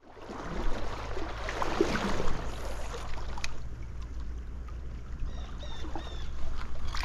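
Shallow trout stream flowing, a steady rushing noise with a low rumble underneath, and a single sharp click about three and a half seconds in.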